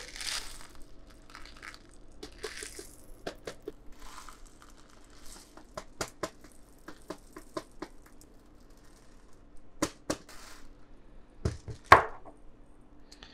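Whole black peppercorns being poured into a small glass grinder bottle, rattling against the glass in scattered clicks and ticks. There is a louder knock near the end.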